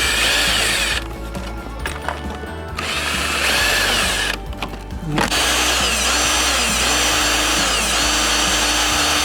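Electric drill boring a hole through the side of a headlight housing in three runs. The first is short, the second lasts about a second and a half, and the last, longest run starts about five seconds in.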